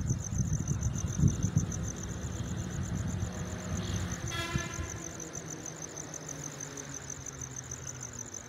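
Thunder rolling low and uneven, with a louder surge about a second in, dying away after about five seconds. Crickets chirp steadily behind it.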